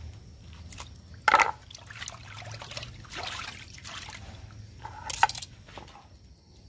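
Water sloshing and splashing in a bowl as pieces of cut fish are dropped in and rubbed clean by hand. There is a sharp clack about a second in and a louder splash a little after five seconds.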